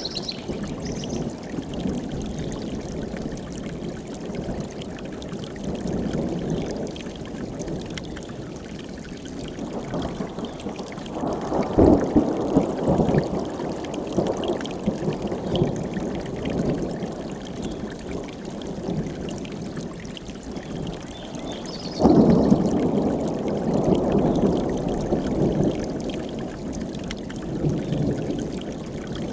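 Mountain stream rushing steadily, with two long rolls of thunder: one swelling about 11 seconds in, and a louder one that breaks suddenly about two-thirds of the way through and slowly dies away. A bird chirps briefly near the start and again just before the second thunder.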